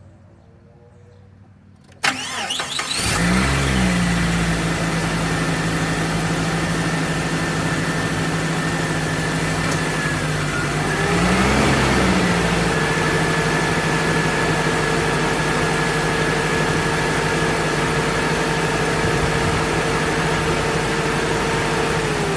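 1999 Jeep Cherokee engine cranking and catching about two seconds in, then idling steadily. About ten seconds later the engine speed briefly rises and drops back, and a steady higher tone joins the idle.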